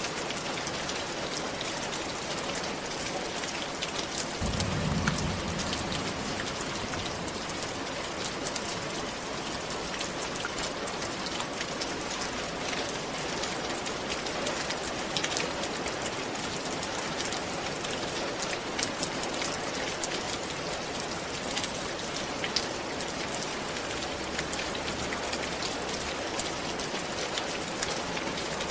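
Steady rain falling on a roof, a dense patter with many distinct drop ticks. A brief low rumble comes about four seconds in.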